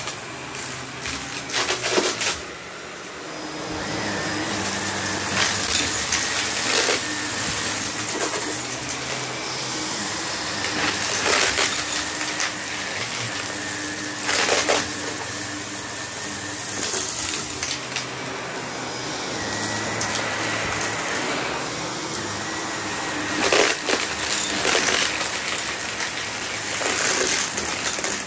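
Shark upright vacuum cleaner running steadily over a shag rug, with crunching and rattling now and then as hidden debris in the pile is sucked up.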